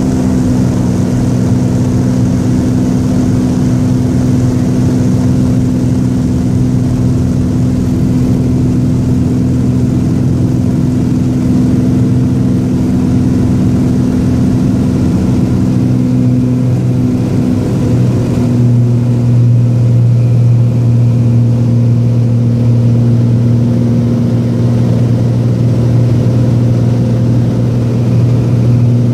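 Cessna 206's six-cylinder piston engine and propeller at takeoff power, heard from inside the cabin as a loud, steady drone through the takeoff roll and climb-out. The pitch of the drone shifts slightly about two-thirds of the way through.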